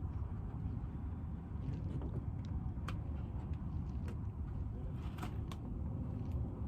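Steady low background rumble, with a few faint short clicks over it about halfway through.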